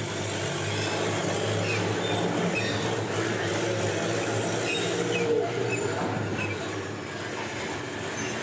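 Heavy diesel truck engine running with a steady low hum and rumbling mechanical noise.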